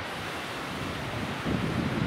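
Wind on the microphone: a steady rushing hiss, with a stronger low buffeting gust about one and a half seconds in.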